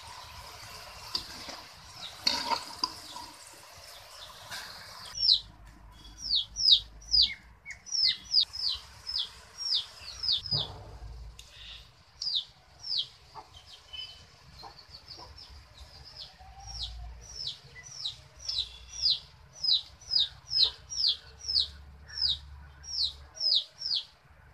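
Kara sev strands deep-frying in groundnut oil with a steady sizzle for the first five seconds or so. After that, a bird chirps over and over, short falling chirps about one or two a second, which are the loudest sounds.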